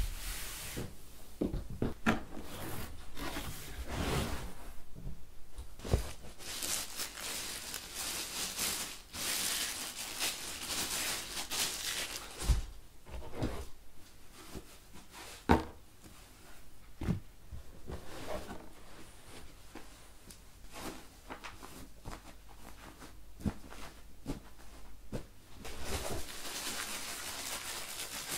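Unboxing by hand: a cardboard box and its moulded pulp packing inserts rubbed, shifted and knocked, with plastic-wrapped parts rustling. Irregular stretches of rustling are broken by a handful of sharp taps and knocks.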